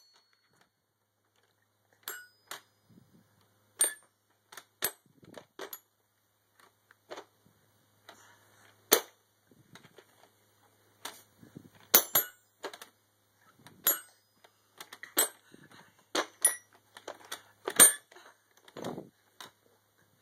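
Child's toy xylophone with coloured bars, struck irregularly by a baby's hand: scattered single hits and short clusters of bright ringing notes, with pauses between.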